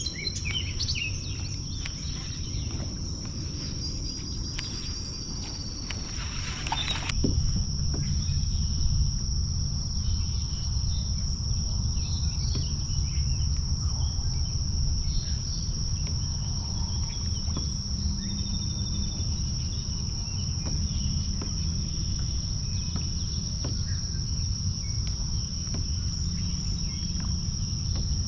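Insects buzzing in one steady high-pitched tone, over a low rumble that grows louder about seven seconds in. A short hiss comes just before the rumble rises.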